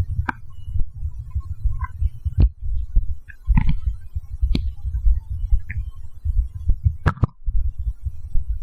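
Human stomach growling after a can of Coke: a steady low rumble that swells and fades, with short higher gurgles and a few sharp clicks scattered through it.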